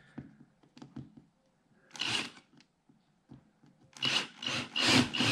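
Cordless drill driving a small screw into a car's side skirt in short bursts: one brief run about two seconds in, then several quick pulses from about four seconds on, the loudest part, after a few faint handling clicks.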